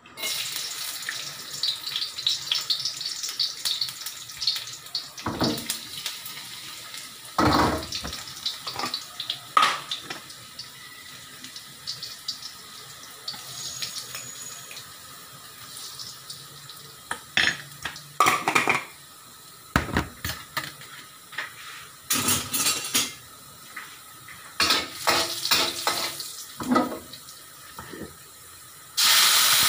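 Cookware clatter while sautéing in a wok on a gas stove: scattered clinks and knocks of utensils against metal pans over a low steady hiss. Near the end a loud steady sizzle starts as the boiled broccoli goes into the hot wok.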